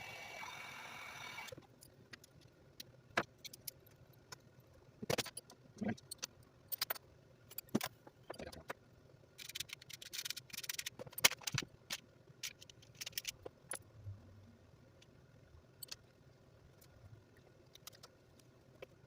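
Irregular clicks, taps and light clatter of small hard parts and hand tools being handled during RC car repair work, thickest about halfway through. This follows a short hiss lasting about a second and a half at the start.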